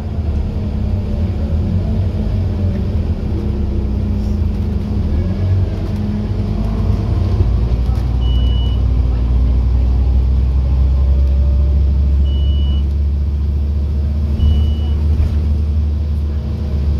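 Scania N230UD OmniCity bus's diesel engine pulling under way, heard from inside the passenger saloon. The engine note rises, then changes and settles into a lower, heavier drone about seven seconds in. Three short high beeps sound over it in the second half.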